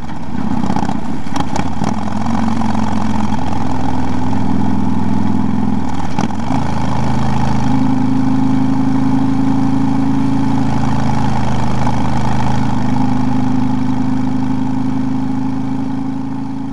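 Cruiser motorcycle engine running at a steady cruising speed, with wind and road noise. There is a brief break with a few clicks about six seconds in, after which the engine note carries on steadily.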